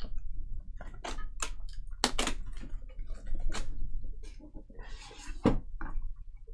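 Trading cards and their packaging handled on a table: a string of short taps and clicks with a brief rustle near the end, over a low steady hum.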